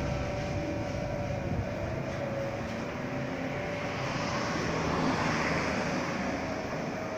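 Distant vehicle noise: a steady rumble and hiss that slowly fades.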